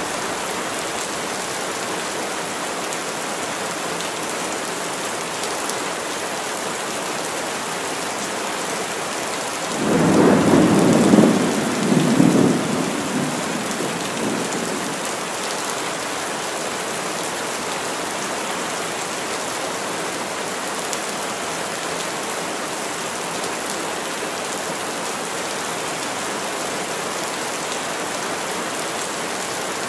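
Steady heavy rain, with a roll of thunder about ten seconds in that swells twice over a few seconds and then fades away.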